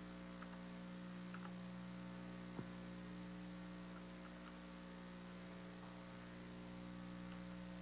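Steady electrical mains hum with a few faint clicks.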